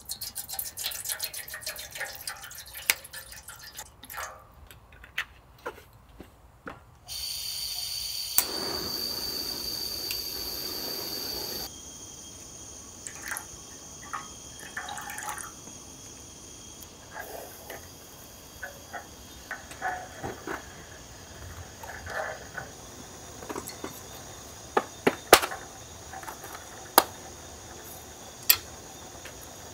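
Camp cooking preparation: crinkling and rustling for the first several seconds, then water running or pouring steadily for about four seconds, then a steady low hiss with scattered light clicks and a few sharp knocks near the end.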